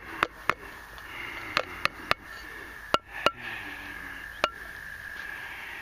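Sharp clicks and taps of a tin can and a plastic tub as canned sweet corn is emptied out, about eight in all, a few with a brief metallic ring. A steady high-pitched hum runs under the second half.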